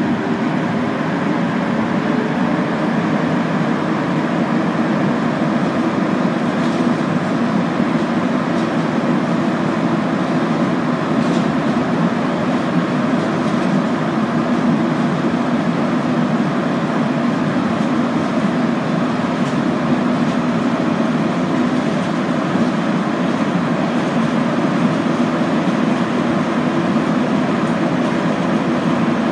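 Inside a Montreal Metro Azur rubber-tyred train car running through the tunnel between stations: a steady, even rumble and hum, with a few faint clicks now and then.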